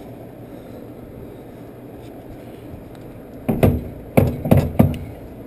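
About four heavy knocks in quick succession, starting a little past halfway, as a front CV axle is forced toward its seat in the transmission. The axle is not going all the way in.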